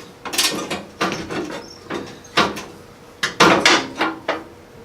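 Metal parts being handled and set against a mower frame: a series of irregular clanks and knocks, some ringing briefly.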